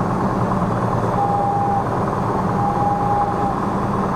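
Piper PA-46 Malibu's engine and propeller running steadily, heard inside the cockpit. Two steady beeps of one pitch sound over it, about a second in and again near three seconds, the second one longer.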